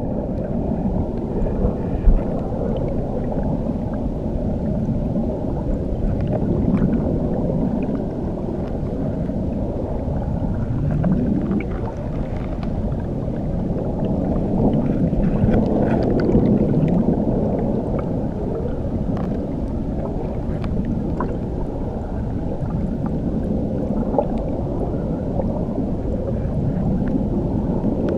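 Water rushing under a waterfall as heard from under the water: a steady, muffled low rumble with slow swells that rise and fall, and faint scattered bubbly ticks.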